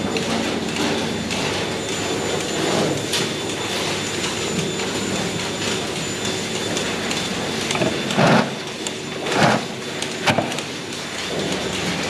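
Milking parlour machinery running with a steady hiss and hum. Three short knocks or clatters come about eight, nine and a half and ten seconds in.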